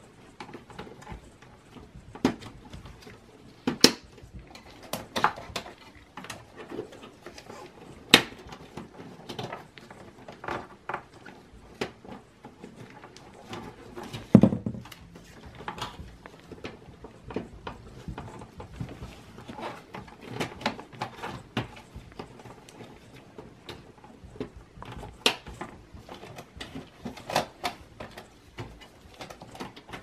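Irregular clicks, taps and knocks from power cables and plastic wire-tie clips being handled and pressed into place inside a metal desktop PC case, with a heavier thump about fourteen seconds in.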